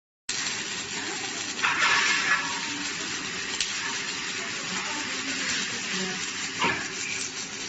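Split set rock bolt ring welding machine at work: a steady sizzling hiss, louder for a stretch about two seconds in, with a few sharp clicks.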